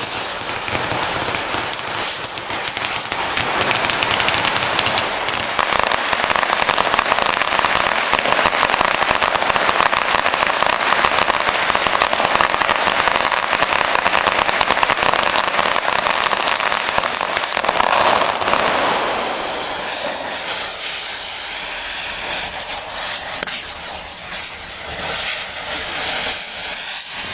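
Long strings of firecrackers going off in a dense, continuous crackle, easing to a thinner crackle and hiss after about twenty seconds.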